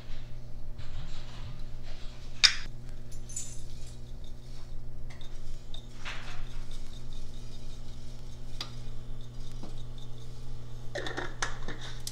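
Kitchen utensils and dishes clinking and knocking now and then, over a steady low hum.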